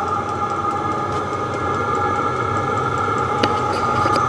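Chinese diesel parking heater running steadily, its combustion blower giving a constant whine over a rushing burn, with faint regular ticking and a single click about three and a half seconds in. The heater is running properly now that its exhaust and air intake are fitted the right way round.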